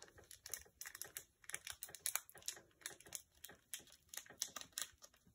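Foil wrapper of a Pokémon booster pack crinkling in faint, irregular little crackles as fingers pick and pull at it, struggling to tear it open.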